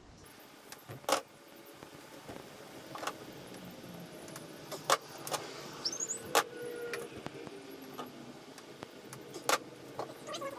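Scattered sharp clicks and light knocks of hand work on boat speaker wiring: crimp-on terminal ends being fitted to the wires. A brief rising squeak comes about six seconds in.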